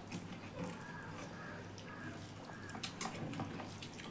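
Quiet eating sounds: scattered wet clicks and smacks of chewing and of fingers mixing rice on steel plates, a short run of them about three seconds in.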